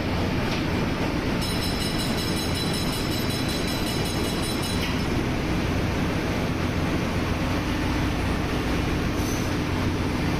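Steady, loud drone of ship's engine-room machinery running. A faint high whine is added from about a second and a half in until about five seconds in.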